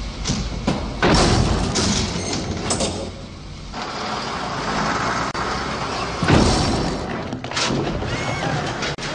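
Film sound effects: vehicle noise broken by several sudden loud thuds, the loudest about a second in and again past the middle.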